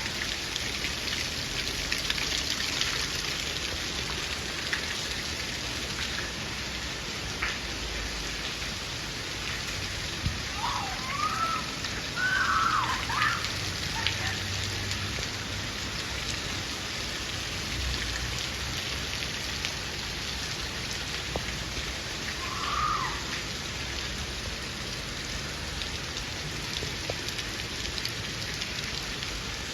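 Steady rain falling, an even hiss with scattered drops ticking on a surface. A few short calls that swoop up and down in pitch stand out about a third of the way in, and once more later.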